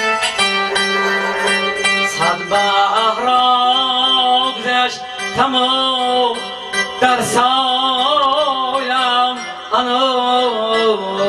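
A man singing a song with a wavering, ornamented melody while accompanying himself on an electronic keyboard; the voice comes in about two seconds in over the keyboard's notes.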